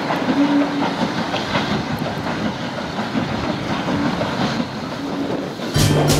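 Saddle-tank steam locomotive hauling its carriages toward the listener, a steady rumble with the wheels clattering on the rails. Music comes in near the end.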